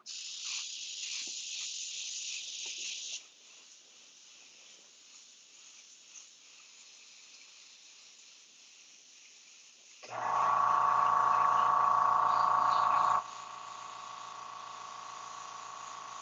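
Airbrush hissing as paint is sprayed for about three seconds. About ten seconds in, the air compressor starts with a loud, steady, pitched hum, which drops to a quieter hum about three seconds later.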